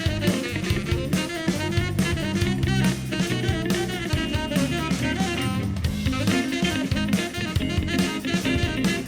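Instrumental band music with no singing: a drum kit keeping a steady beat under melodic instruments.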